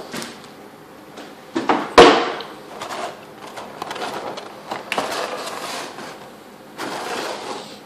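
Unboxing handling noise: a sharp knock about two seconds in, then clicks and rustling of packaging being handled.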